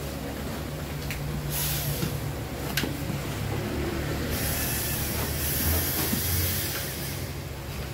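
Cardboard guitar shipping box being handled and closed: a brief scraping rustle of cardboard sliding on cardboard, a sharp knock about three seconds in, then a longer scrape of the lid over a steady low hum.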